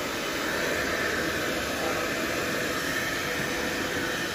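Hair dryer blowing steadily on a dog's coat, an even whooshing hiss.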